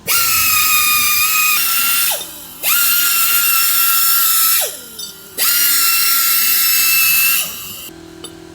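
High-speed power tool whining at a steady high pitch in three bursts of about two seconds each, the pitch falling as it winds down after each one.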